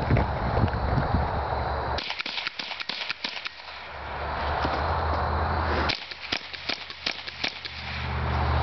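Ruger 10/22 .22 rimfire semi-automatic rifle firing quick strings of shots, a run starting about two seconds in and another about six seconds in. A low rumble comes before and after the shooting.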